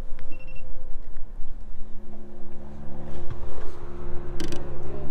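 Boat motor running steadily, its hum setting in about a second and a half in, over a low rumble on the microphone. A short high beep sounds near the start, and a brief clatter comes near the end.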